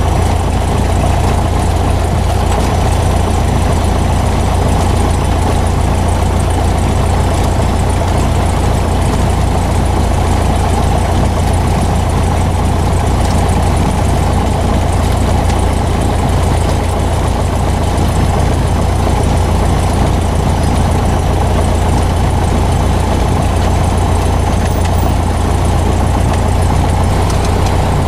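Single-engine light aircraft's piston engine and propeller running steadily at taxi power, heard from inside the cockpit as a loud, even, low drone.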